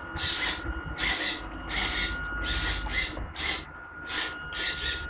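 Electric drive of a Tamiya 1/14 Knight Hauler RC truck running with a faint steady whine and a low rumble, overlaid by short hissing noises repeating about twice a second.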